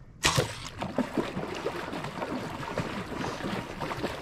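A compound bowfishing bow is shot about a quarter second in, a sharp loud snap, followed by a few seconds of irregular splashing, knocking and rattling as the line runs out and the water is stirred.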